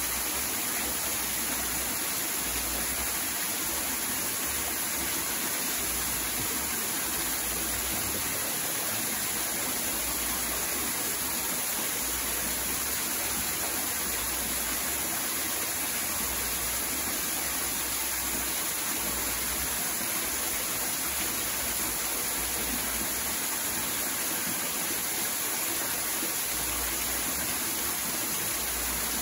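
Water splashing and trickling steadily into a shallow pool, an even rushing noise with no breaks.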